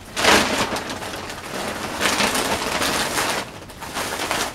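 Plastic packaging crinkling and rustling as a plastic-wrapped garment is handled and pulled out of a poly mailer bag. It comes in uneven bursts, loudest just after the start and again midway.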